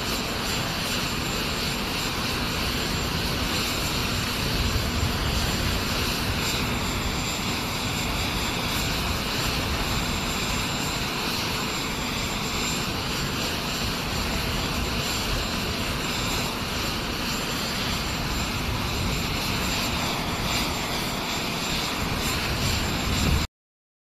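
Jet aircraft engines running on an airfield: a steady roar with a thin high whine over it and gusty wind rumble underneath. It cuts off suddenly near the end.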